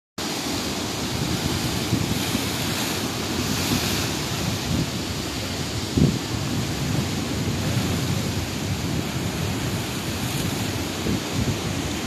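Ocean surf breaking and foaming against rocks, a continuous rushing wash, with wind buffeting the microphone. A sharp low thump about halfway through is the loudest moment.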